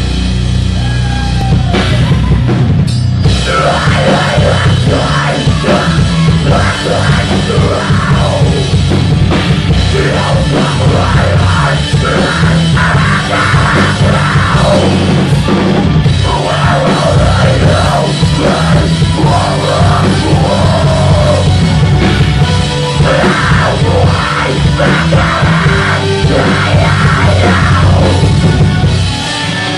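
Live heavy rock band playing loud through a club PA: drum kit, heavy amplified instruments and keyboard, with a singer on a handheld microphone, heard from within the crowd. The level dips slightly near the end.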